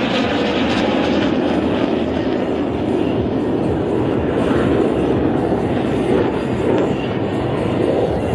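Aircraft engine noise from a display aircraft at an air show: a loud, steady rushing sound with no rhythm or distinct pitch.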